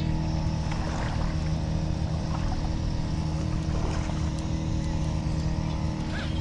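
Steady low motor drone at one unchanging pitch with overtones, holding an even level throughout.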